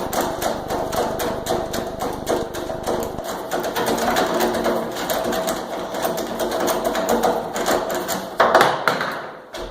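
A power drill-driver running in long stretches to back out the screws of an old doorknob: a steady motor whine with rapid, even clicking, about six a second, and a louder rush near the end.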